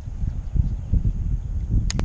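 Wind buffeting the action camera's microphone: a rumble that rises and falls in gusts, with a couple of sharp clicks near the end.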